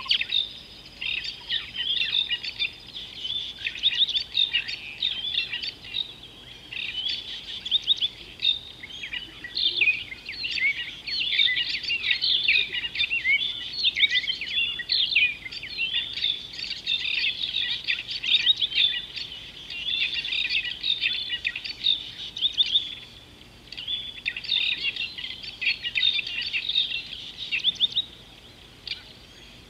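A dense chorus of small birds chirping and twittering, almost without a break, with a couple of short lulls late on.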